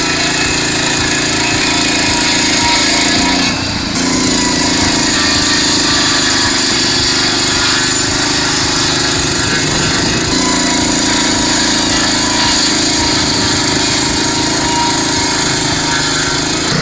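Small petrol engine driving a circular saw, running steadily with cutting noise. The sound dips briefly a few seconds in and shifts slightly in pitch about ten seconds in.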